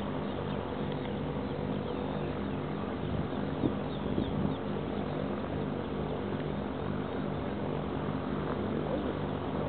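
Robin R2160's four-cylinder Lycoming piston engine and propeller running at low power as the light aircraft rolls out along the runway after landing, a steady, gently pulsing drone heard from a distance.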